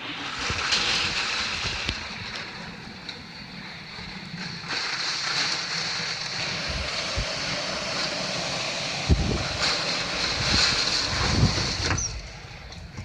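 Strong typhoon wind gusting: a loud rushing that swells about half a second in, eases around two seconds, builds again from about five seconds and drops near the end. The gusts buffet the microphone with deep thumps around nine and eleven seconds.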